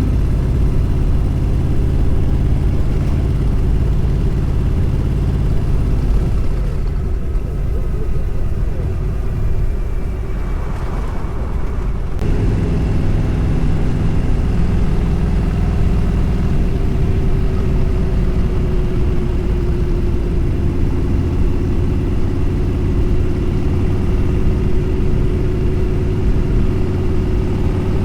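Vehicle engine running steadily on the road, its note easing off between about 7 and 12 seconds in and then picking up again suddenly.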